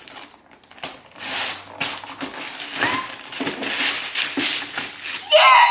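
Cardboard box and packaging being torn open and handled, irregular crackling and ripping from about a second in. A child's voice cuts in near the end.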